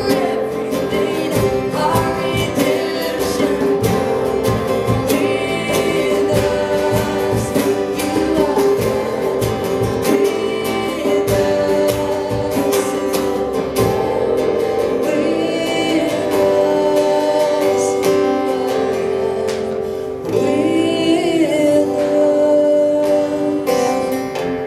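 Live acoustic worship song: a woman singing with two strummed acoustic guitars and a djembe hand drum keeping the beat.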